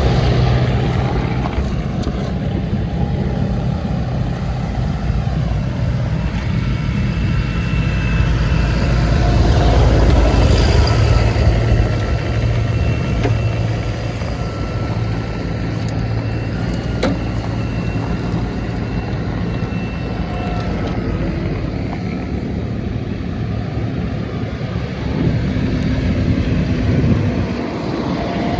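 Diesel tractor engine running steadily under load, growing a little louder around ten seconds in.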